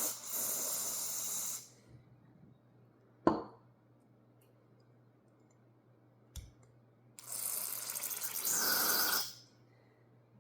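Aerosol can of carburetor cleaner spraying in two hissing bursts, the first about a second and a half long at the start, the second about two seconds long after the middle, with a single sharp tap in between.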